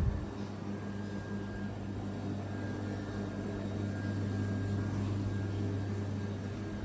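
A steady low mechanical hum, holding one pitch throughout.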